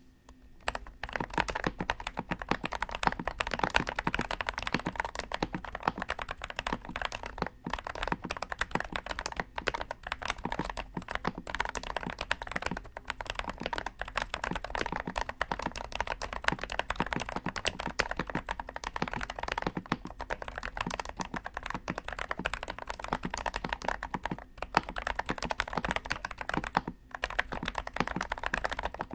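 Fast typing on a mechanical keyboard with a Lego-brick case, AKKO Cream Yellow linear switches and Cherry-profile PBT keycaps: a dense stream of keystrokes that starts about a second in, broken by a couple of brief pauses.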